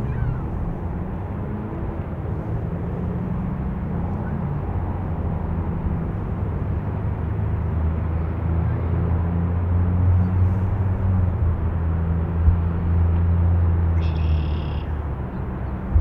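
Low engine drone of a vehicle, building in level through the middle and easing off near the end. A brief high-pitched tone sounds about fourteen seconds in.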